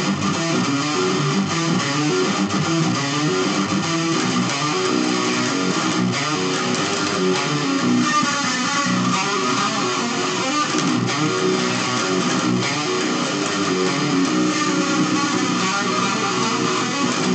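Electric guitar playing a fast riff of quickly changing notes, recorded through a pocket camcorder's built-in microphone.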